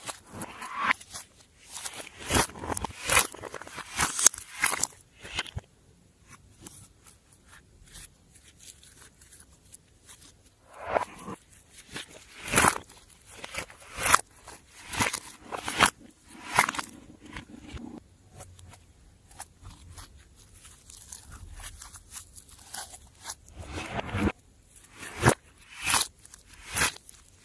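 Slime being squeezed and kneaded by hand, giving irregular sticky clicks and pops in bursts, with quieter lulls between them.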